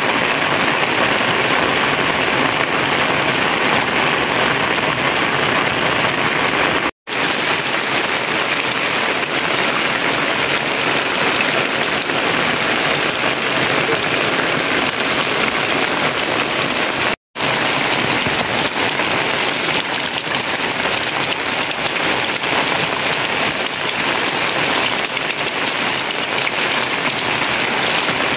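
Steady rain falling and pattering on surfaces, an even hiss without pauses. The sound cuts out for an instant twice, about seven and seventeen seconds in.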